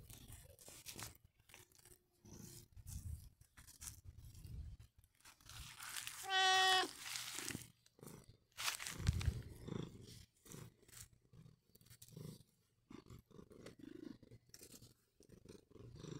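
A domestic cat meows once, a short pitched call about six seconds in. Around it are scattered rustles and soft bumps from the cat being stroked and rubbing close to the microphone, with one heavier thump about nine seconds in.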